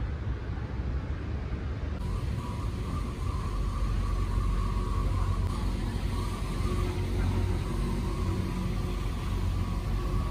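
Steady low rumble and hum of an airport moving walkway's drive, with a steady whine that comes in about two seconds in.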